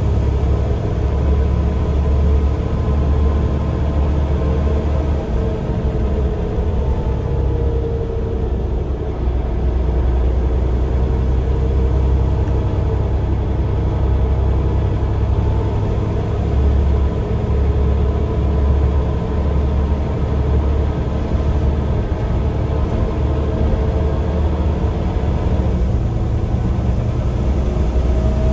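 Scania OmniCity bus's rear-mounted diesel engine idling steadily, a deep rumble heard from inside the passenger saloon.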